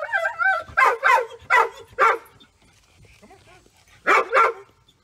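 Golden retriever giving short, high barks and yips: a wavering whine at the start, four quick barks in the first two seconds, then two more about four seconds in.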